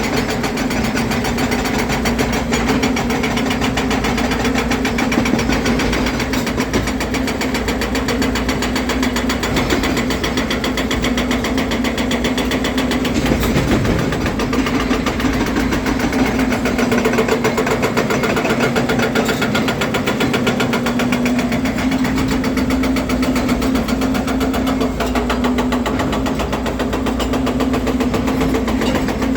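Volvo EC300DL excavator's diesel engine running steadily, a loud continuous drone with a fast, even pulse.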